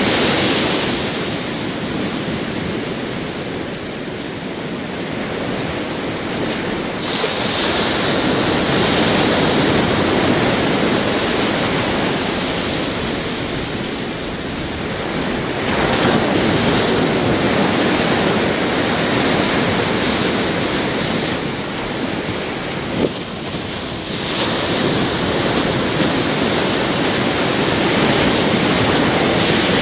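Pacific surf: small waves breaking and washing up the beach in a steady hiss that swells and eases, rising with a fresh wave three times.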